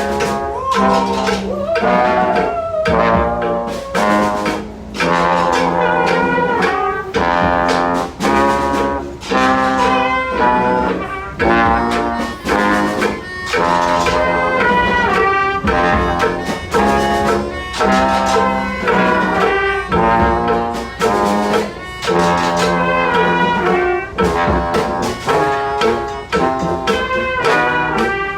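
Brass street band with saxophones and percussion playing a lively tune in short, punchy repeated chords over a steady beat.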